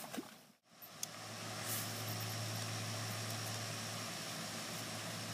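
A steady low hum like a motor running, with a thin, steady high whine above it. A single sharp click comes about a second in.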